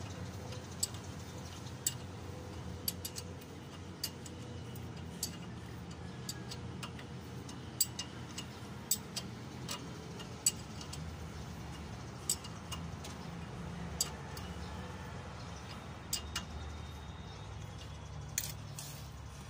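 Sharp metallic clicks of a hand wrench working the nut on top of a truck's king pin, coming irregularly about once or twice a second, over a steady low hum.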